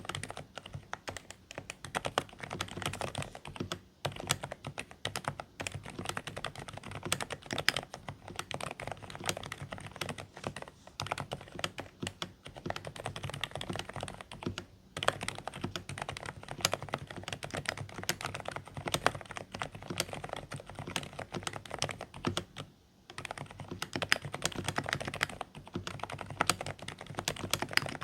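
Continuous typing on a Dareu A104 Pro mechanical keyboard with silent beige switches: quiet, slightly muffled keystrokes in a fast, dense stream, with brief pauses about 4, 15 and 23 seconds in.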